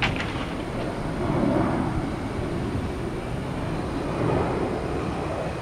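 Jet airliner engine noise at an airport, a steady low rumble that swells and eases, with a brief sharp click right at the start.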